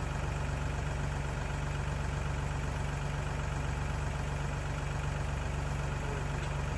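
An engine running steadily at constant speed, with a fast, even pulse and no change in pitch.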